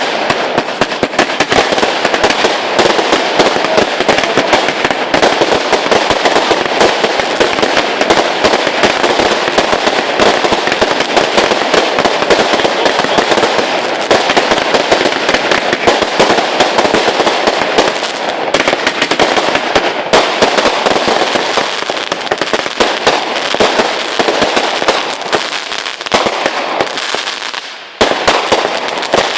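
Fireworks going off in a dense, continuous rapid crackle of bangs. The crackle fades briefly just before the end, then bursts loud again.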